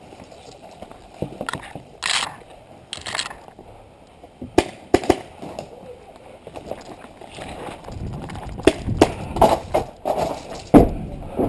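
Branches and foliage rustling and swishing past as a person pushes through dense brush, with scattered snaps and knocks. Then heavier footsteps and sharp knocks, a stronger one near the end, as they move onto a wooden plank floor.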